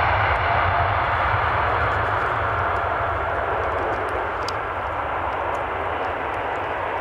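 Jet airliner engines running as the plane passes, a steady rushing roar with a low rumble that slowly fades.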